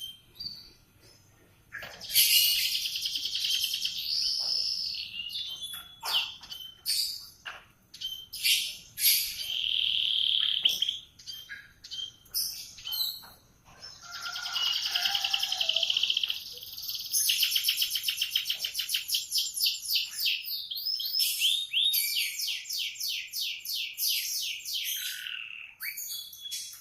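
Domestic canary singing: high warbling song phrases broken by short pauses, with long, fast trills of rapidly repeated notes in the second half.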